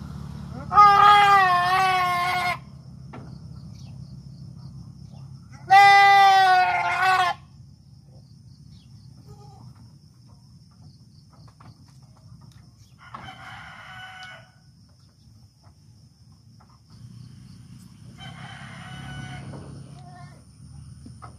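Goats bleating: two loud, quavering calls of nearly two seconds each in the first seven seconds, then two fainter calls later on.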